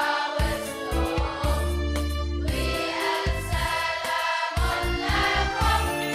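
Middle-school choir singing a hymn, many young voices holding sustained notes together over a steady low bass.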